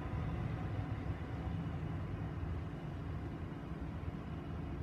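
Steady low outdoor background rumble with no distinct event.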